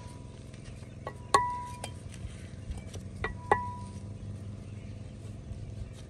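Steel mason's trowel tapping fired clay bricks to bed them into mortar: several sharp metallic clinks, each with a short ring, two louder ones about a second and a half in and about three and a half seconds in.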